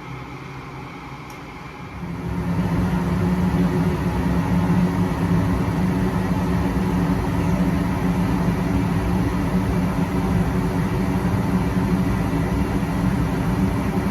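Goodman gas furnace firing: a steady fan hum, then about two seconds in the gas comes on and the burners light, jumping to a much louder, steady burner noise that holds.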